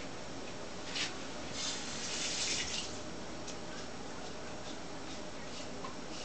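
A small dog licking its lips and chops. A click about a second in, then a stretch of wet licking and smacking, followed by a few faint ticks.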